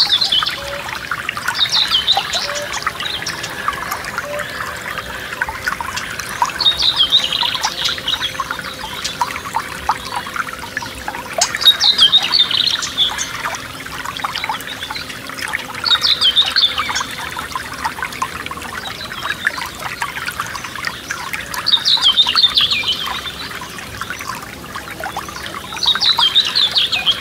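Forest stream trickling and babbling steadily, with a songbird repeating a short song phrase every four to five seconds.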